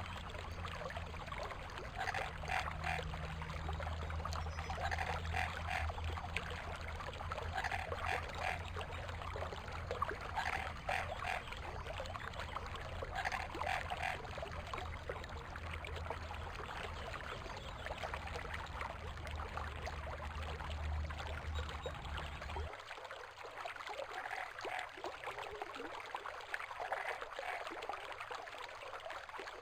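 Creek water running and trickling over stones, with a frog croaking at regular intervals every two to three seconds. A low rumble underneath stops abruptly about three-quarters of the way through.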